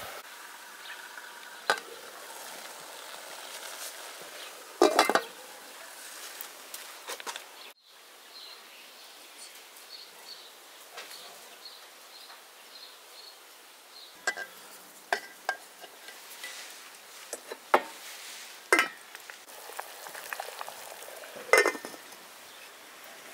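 Cooking utensils and pots clinking and knocking now and then over a faint steady sizzle, with the loudest knock near the end. A short run of high, evenly repeated chirps comes in the middle.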